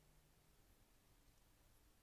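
Near silence: a faint steady hiss with a weak low hum.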